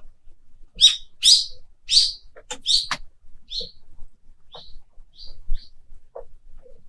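Frozen lake ice singing and cracking. A quick run of high chirping pings and sharp snaps comes in the first three seconds, then sparser, fainter pings follow. These are the creaks of the ice sheet as it shifts.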